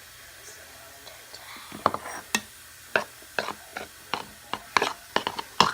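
A utensil clicking against a bowl while stirring a slime mixture: an irregular string of sharp clicks, two or three a second, starting about two seconds in.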